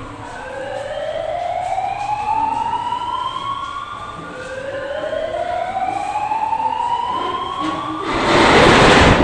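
Emergency vehicle siren wailing in slow rising sweeps, two in a row of about four seconds each. Near the end a loud rush of noise comes in over it.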